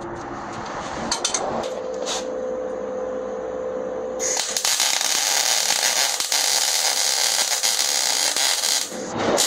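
A power tool whines steadily, then gives way to a loud, even rushing hiss from about four seconds in until near the end.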